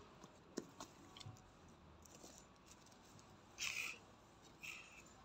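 Near silence with a few faint clicks in the first second or so, then two short hissing sounds near the end, the first the louder.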